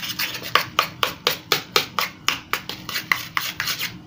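A spoon scraping round a steel bowl in quick even strokes, about four a second, as whipped cream and melted chocolate are stirred together.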